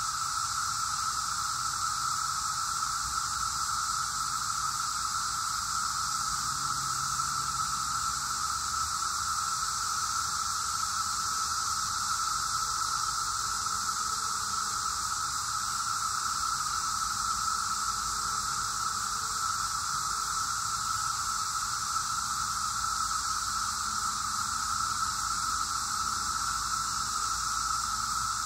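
A dense chorus of periodical cicadas making a steady, unbroken whirring drone in two pitches: a middle hum with a higher hiss above it.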